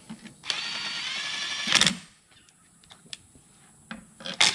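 Cordless drill/driver with a socket extension spinning a bolt down into the inverter housing of a Tesla Model 3 rear drive unit. It gives a steady whine for about a second and a half, ending in a short loud clatter as it stops. A few light clicks follow, and there is a sharp click near the end.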